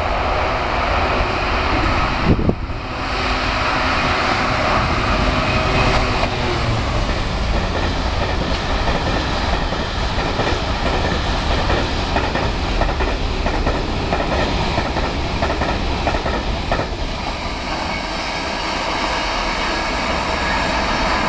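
A long train of Network Rail ballast hopper wagons rolling past close by: a loud, steady rumble and clatter of wagon wheels on the track.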